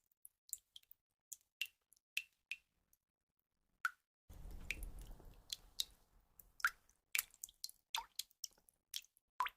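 Water drops falling one by one, each a short, sharp plink at irregular intervals. There is a pause of about a second before the middle. Just after it comes a low rushing noise lasting about two seconds, and the drops then come thicker toward the end.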